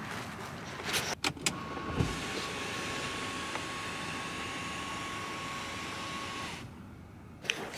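A few sharp clicks and a thump, then a car's electric window motor running steadily with a thin whine for about five seconds before it stops suddenly.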